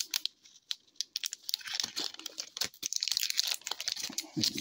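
Foil wrapper of a hockey card pack crinkling and tearing in sharp, irregular crackles as it is peeled off the cards, with a dull handling bump near the end.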